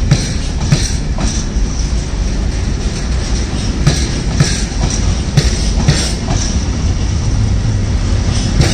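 Engineering train's open box wagons rolling past close by: a steady low rumble with repeated clacks of the wheels over the track.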